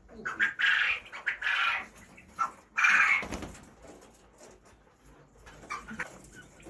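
Chickens squawking in a few loud, harsh calls over the first three seconds or so, then a few faint clucks near the end.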